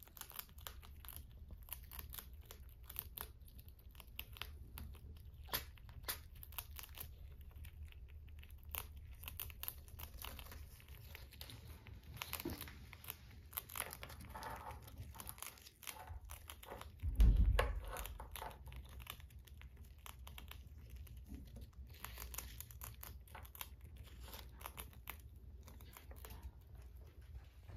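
Pet rats nibbling and crunching dry snack crumbs and a biscuit, a run of small quick clicks and crackles. There is one loud low thump a little past halfway through.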